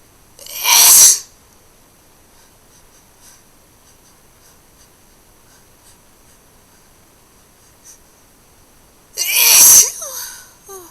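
Two hard, wet human sneezes, each a single loud burst, about eight and a half seconds apart; the second trails off briefly with a short falling after-sound.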